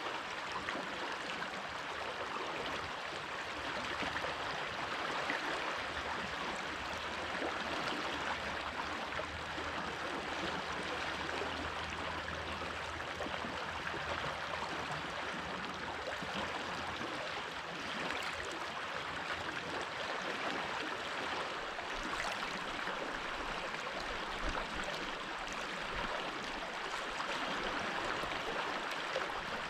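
Stream water running and babbling steadily over stones.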